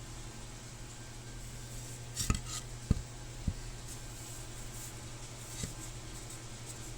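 Steady low machine hum with a few sharp metallic clinks and knocks, as of tools or parts being handled: a quick cluster about two seconds in, two single knocks shortly after, and a fainter one near the end.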